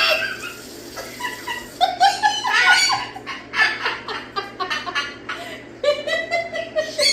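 A hen making her wheezing laugh: several bursts of quick, stuttering calls.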